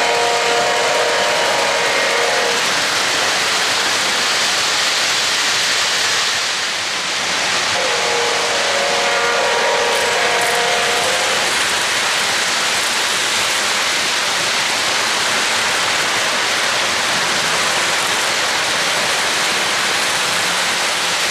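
Steady rolling noise of O-gauge model trains running on three-rail track, with two long chord-like signal blasts from a model locomotive's sound system: one ending about two and a half seconds in, another from about eight to eleven and a half seconds in.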